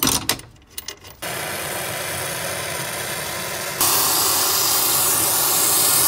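A few short knocks, then a brazing torch flame hissing steadily as copper refrigerant lines are brazed onto a compressor; the hiss gets louder and brighter a little under four seconds in.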